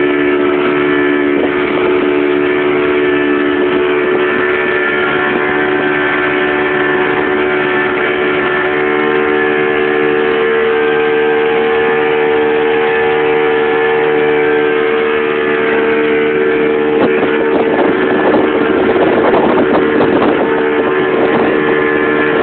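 Motorboat engine running hard at about 80% throttle, heard on board as a loud, steady drone with an unchanging pitch. In the last few seconds rushing noise rises over it.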